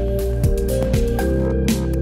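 Background music with sustained notes over a steady bass and a regular drum beat.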